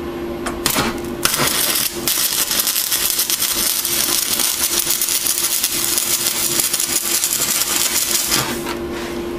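Stick-welding arc crackling steadily as an electrode runs a bead on a steel nut. It sputters briefly as the arc is struck about a second in, then crackles evenly until it stops shortly before the end.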